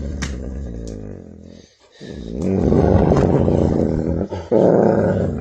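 Wolf growling. A low, pitched grumble fades out about two seconds in, then a louder, rough growl runs on.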